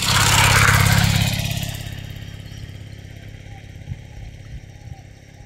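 A motor vehicle passing close by on the road: its engine and tyre noise swell to a peak about a second in and die away by two seconds.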